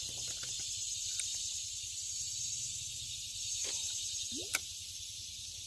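Steady high-pitched chorus of insects. A short rising squeak and a sharp click come about four and a half seconds in.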